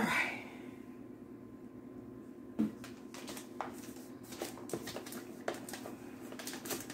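Gift boxes and wrapping paper being handled: a thump at the start, then scattered light knocks and rustles over a faint low room hum.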